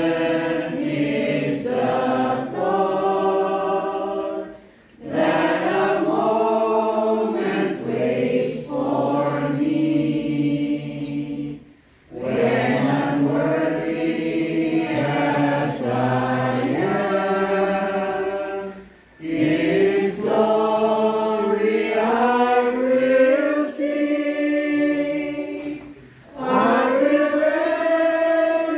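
Church congregation singing a hymn together, in long sustained phrases of about seven seconds with brief breaks for breath between them.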